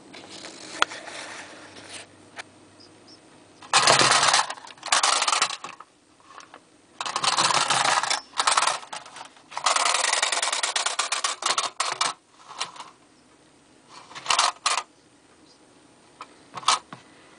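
Clockwork spring motor of a 1930s Chein tin wind-up alligator toy, whirring and rattling in repeated bursts of about half a second to two seconds, with pauses between them.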